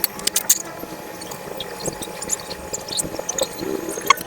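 Scattered small metallic clicks and clinks of hand tools and engine parts being handled, as the oil is checked on a Yamaha Mio M3 scooter engine.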